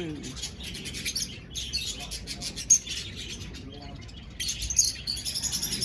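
A flock of budgerigars in an aviary chattering: many rapid, overlapping high chirps and warbles, a continuous chitter-chatter that eases briefly just before the last two seconds, then picks up again.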